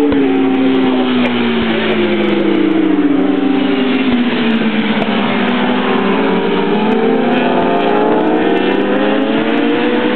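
Superbike racing motorcycle engines, several bikes at once. Their pitch falls over the first half as they slow for a tight, slow corner, then rises as they accelerate out of it.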